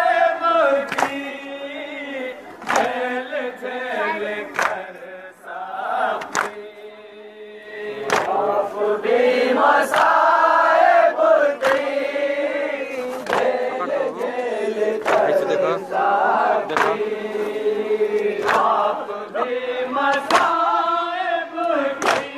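Men reciting a noha, a Shia mourning lament, into a microphone, with the crowd chanting along. Sharp slaps of matam (chest-beating) keep time about once a second. The singing drops away briefly about a third of the way in.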